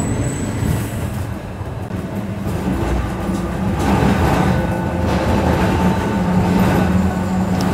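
Old electric tram running along its rails, heard from inside the saloon: a steady hum and rumble of wheels on track. It grows louder about four seconds in as a thin whine joins.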